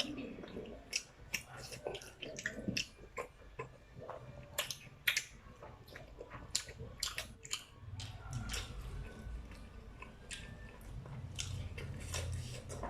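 People chewing momo dumplings close to the microphone, a run of many short, irregular wet mouth clicks.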